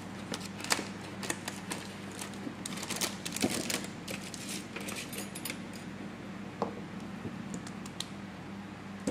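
Scattered light clicks and taps, with a denser run of them about three seconds in, as an opened smartphone and small repair tools are handled, over a steady low hum.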